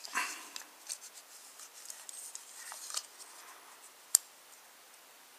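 Quiet scraping and small clicks of a miniature toy train locomotive's plastic body shell being handled and fitted back onto its chassis, with one sharp click about four seconds in.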